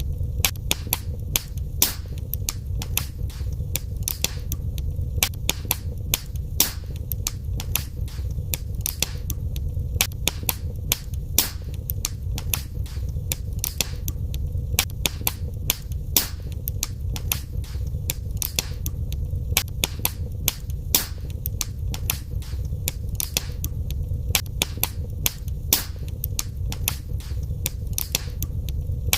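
Wood fire burning in a fireplace: frequent irregular sharp crackles and pops over a steady low rumble of the flames.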